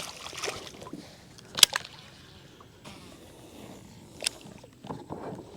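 A few scattered sharp knocks and clicks from handling on a fishing kayak, over a low background.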